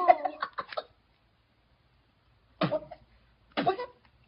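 Laughter or a shriek trailing off, then after a short quiet two separate coughs about a second apart.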